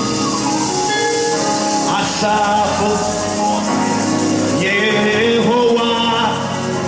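Live gospel music: a male lead singer over a band with keyboard and hand percussion, shakers or tambourine keeping time.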